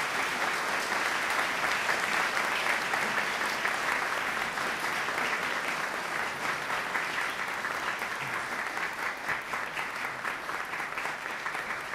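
A large audience applauding steadily in greeting as a speaker is called to the stage, the clapping easing off slightly toward the end.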